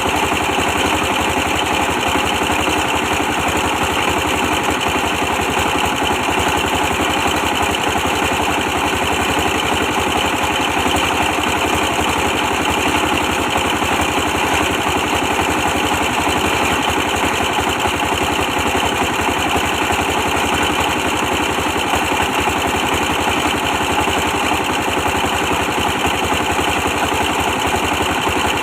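24 hp stationary diesel engine powering a brick press machine, running steadily at constant speed.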